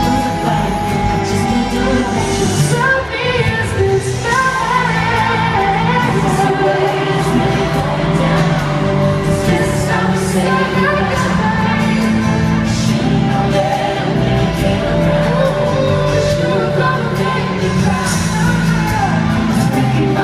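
Live pop concert amplified in an arena: a male voice singing with an acoustic guitar and band through the PA, with the crowd cheering here and there.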